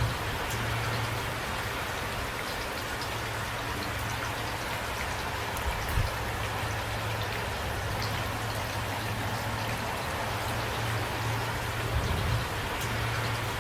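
Steady rain falling, an even hiss with individual drops ticking through it. A low steady hum sits underneath, with two brief low thumps, about halfway through and near the end.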